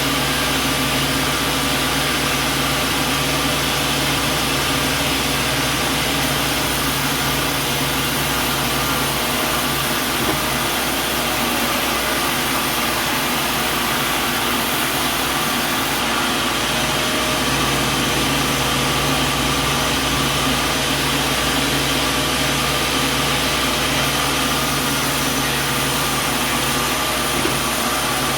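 Sawmill machinery running steadily, a constant mechanical hum with several steady tones over a broad noise. Its low tone fades out about ten seconds in and comes back about seven seconds later.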